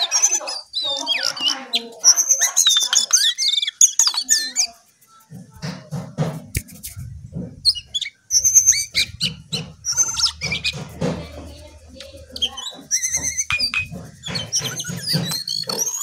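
Caged jongkangan (cingcoang coklat) singing a fast, varied chattering song of whistles, trills and sharp chirps, with a short pause about five seconds in.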